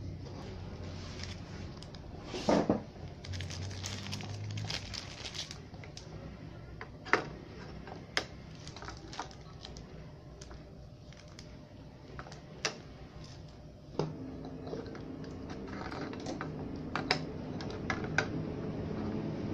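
Hands handling a circuit board and its small metal parts on a wooden workbench: scattered clicks and taps, loudest as a double knock about two and a half seconds in.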